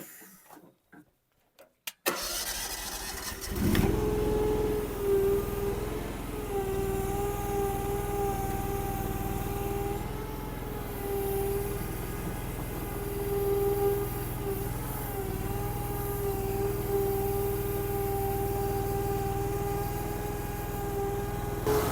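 Mini skid steer's engine starting about two seconds in and revving up. It then runs steadily at high throttle with a steady whine, its pitch dipping slightly now and then, while the machine works to lift a 750-pound load.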